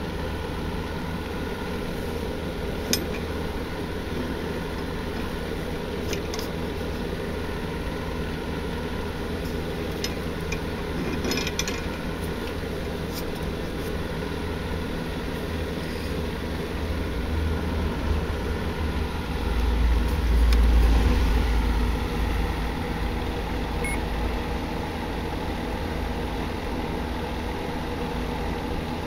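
A steady droning hum made of several level, evenly pitched tones, with a deep rumble swelling for a few seconds about twenty seconds in and a few faint clicks.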